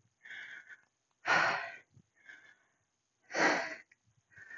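A woman breathing hard through kettlebell squats: two loud, sharp exhales about two seconds apart, one per squat, with quieter inhales between.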